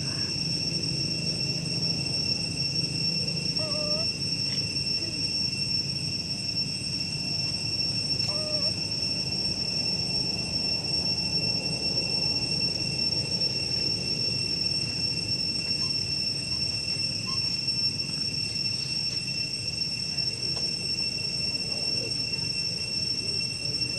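Insects droning: one steady, unbroken high-pitched whine, with two short calls about four and eight seconds in.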